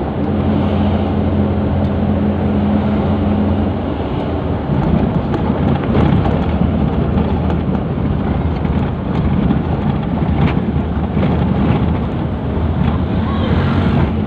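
Engine and road noise inside a small vehicle's cabin while driving: a steady engine hum for the first few seconds, then a rougher rumble with light rattles and ticks.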